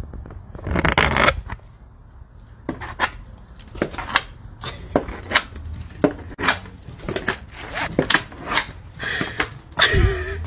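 A dog in a plastic cone collar climbing wooden porch steps: irregular clicks, knocks and scrapes of the cone and paws on the boards, with a noisy scrape about a second in. A short voice-like sound comes near the end.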